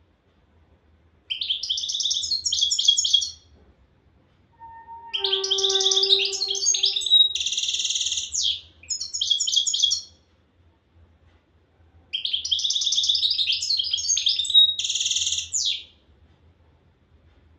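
European goldfinch singing: three bursts of rapid twittering trills, the second and third with buzzy notes near their ends. A lower steady tone sounds briefly under the start of the second burst, about five seconds in.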